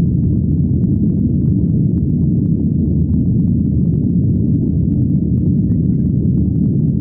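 Jet airliner cabin noise during the climb after takeoff: a loud, steady, deep rumble of the engines and rushing air, heard from inside the cabin.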